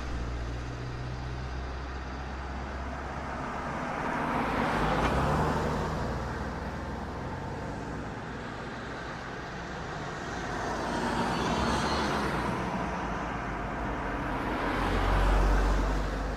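Cars driving on an asphalt road: a steady hum of tyre and engine noise that swells and fades three times as vehicles pass, about five, twelve and fifteen seconds in, the last pass the loudest.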